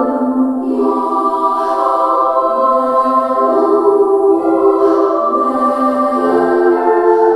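Slow, choir-like music of sustained voices, its chords changing every second or two, with little deep bass, playing on a pair of Boston Acoustics CR6 bookshelf speakers during a listening test.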